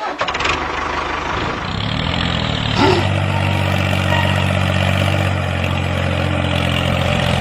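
An engine running steadily at idle, its note building over the first two seconds and then holding even.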